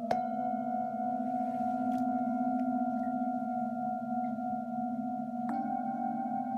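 Several Himalayan singing bowls ringing together in layered, sustained tones with a slow wobble. One bowl is struck sharply just after the start, and about five and a half seconds in the mix of tones shifts as another bowl sounds.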